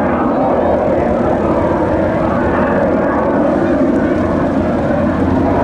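A piston-engined WWII fighter aircraft flying past, its engine and propeller running loud and steady throughout.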